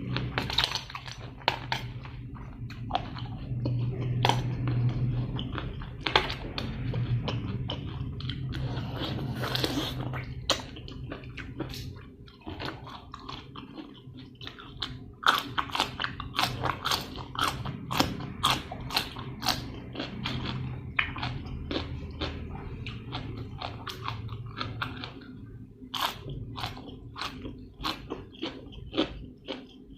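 Close-up chewing and biting with many sharp, irregular crunches, from someone eating spicy pounded papaya salad with blue crab and fresh shrimp; the crunching comes thicker in the second half.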